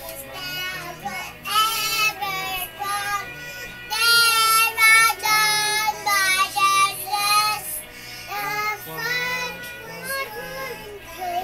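A young girl singing along to a song playing from a TV, her voice over the recorded music's accompaniment.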